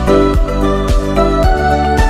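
Background music with a steady beat, a little under two beats a second, over held notes.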